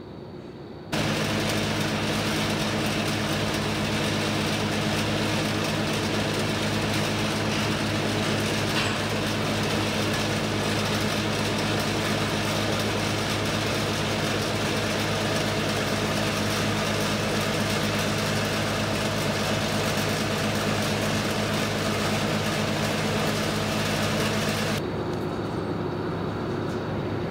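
Steady mechanical drone: a loud even rumble and hiss with a low, constant multi-pitched hum. It cuts in suddenly about a second in and cuts out near the end.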